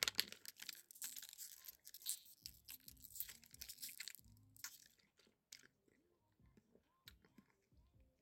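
Faint crackling and crinkling of a thin plastic drink bottle, with small mouth sounds as a drink is sipped from its spout. The crackles are dense for about five seconds, then thin out to a few scattered clicks.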